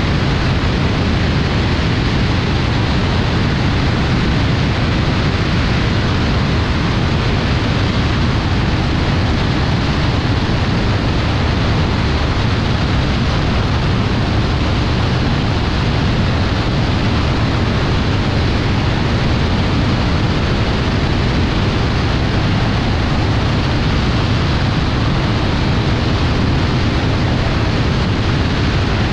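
BRM Citius ultralight in steady level flight: the engine and propeller drone under a heavy rush of airflow over the wing-mounted camera, unchanging throughout.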